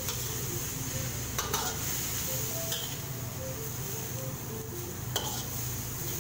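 Shredded white radish being stir-fried in a metal wok: a long metal spatula stirring and scraping through it over a steady sizzle, with a few sharper scrapes against the wok about a second and a half in and again about five seconds in.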